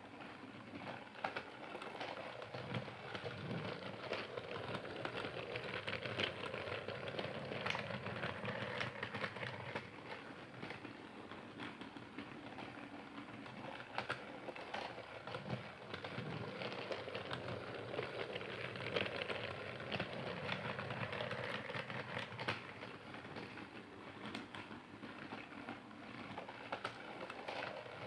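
Train running with a steady, dense clatter of rapid clicks that rises and falls in level without stopping.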